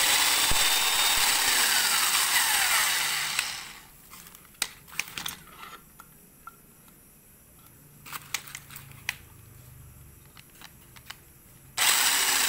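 Power drill boring into white plastic, running for about three and a half seconds and then stopping. In the pause come a few light clicks and knocks, and the drill starts again near the end.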